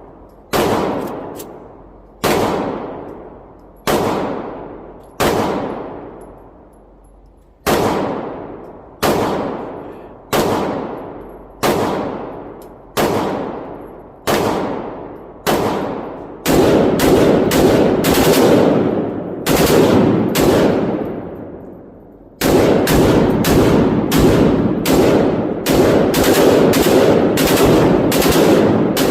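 Zastava ZPAP92 AK pistol with a forced reset trigger firing: about a dozen single shots a little over a second apart, then fast strings of rapid shots, each shot ringing out with a long echo. The rifle cycles smoothly, described as running like butter.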